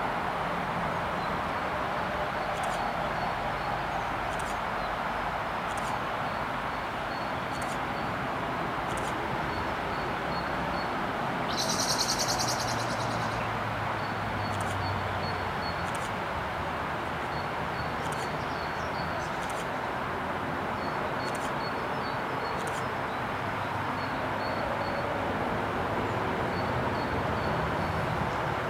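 Steady distant jet rumble of an Airbus A380's four Rolls-Royce Trent 900 engines on landing approach, swelling slightly near the end. Small birds chirp repeatedly over it, with a short rapid trill about twelve seconds in.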